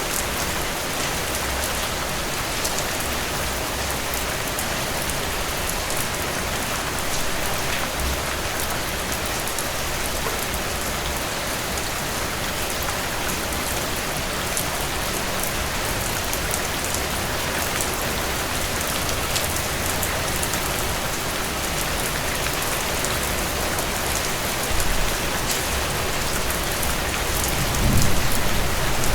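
Heavy, steady rain pattering on a surface, with a dense hiss and fine individual drop ticks. A brief low rumble swells near the end.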